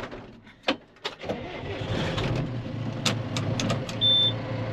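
John Deere tractor's diesel engine starting about a second in and settling into a steady idle, heard from inside the cab. A few sharp clicks of cab controls and a short high beep come near the end.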